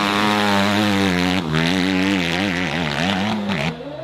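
Dirt bike engine running hard at high revs as the bike climbs. About a second and a half in, the pitch starts wavering up and down as the throttle is worked, and the sound breaks off near the end.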